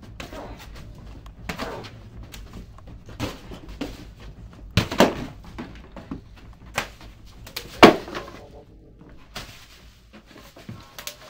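Scattered knocks and thumps with rustling as hanging sacks and plastic-wrapped bundles in a wooden attic are pushed aside and bump about. The loudest is a sharp knock about eight seconds in. A low steady hum runs underneath.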